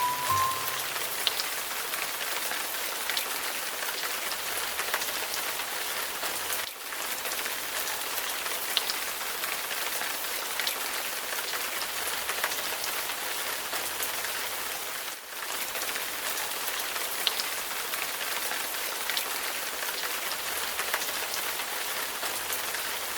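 Steady rain, an even hiss with scattered ticks of single drops, dipping briefly twice.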